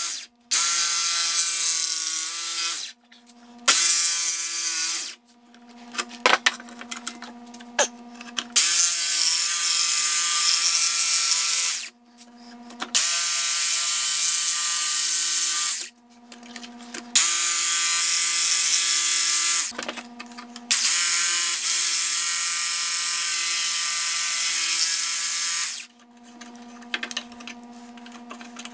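Ryobi cordless jigsaw cutting through a thin wooden board, running in bursts of a few seconds and stopping about seven times as the cut is made in short stretches. Clicks and rattles of the saw and wood come in the pauses.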